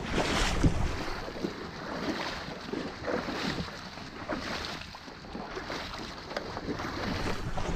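Someone wading through shallow water, with irregular splashing steps and water sloshing around a loaded gear sled being dragged along.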